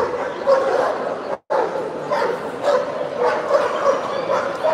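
Several dogs barking and yipping, the calls overlapping without pause. The sound cuts out completely for a moment about one and a half seconds in.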